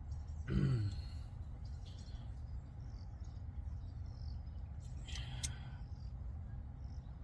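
Hand tools working on a brake caliper: short squeaks and clicks over a steady low rumble, with one brief squeaky burst about five seconds in.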